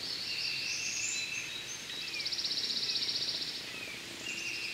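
Birds and insects calling in the surrounding woods: a high, steady buzzing with short chirps, and a fast pulsing trill in the middle.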